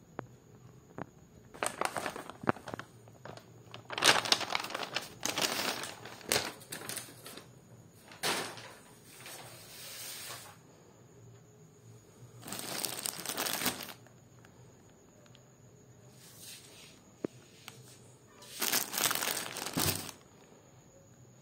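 Packaging crinkling and rustling in about six irregular bursts: a paper shipping bag and the plastic wrapper of a diaper pack being handled and opened.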